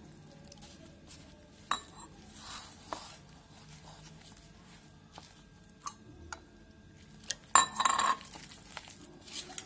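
Silicone spatula knocking and scraping against a plastic mixing bowl while working a crumbly wheat-flour and semolina mix: scattered taps, with a louder clatter of knocks and scraping near the end.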